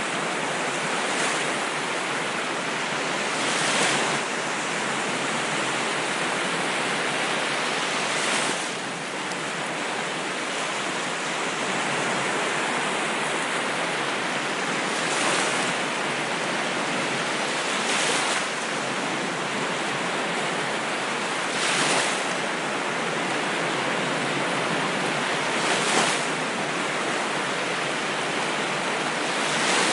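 Ocean waves washing in a steady surf, with a brief louder hiss of a breaking wave every few seconds.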